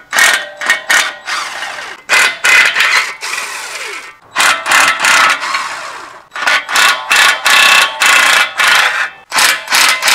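DeWalt cordless power tool run in repeated bursts of a second or two with short pauses, backing out the clutch pressure plate bolts.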